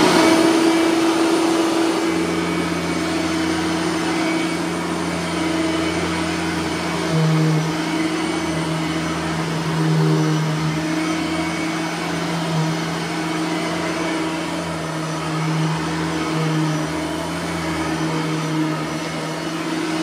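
Bissell 3510 bagged upright vacuum cleaner's 9-amp motor running steadily, its low hum shifting as it is pushed back and forth over a hallway runner rug. Its brush roller bearings are freshly greased.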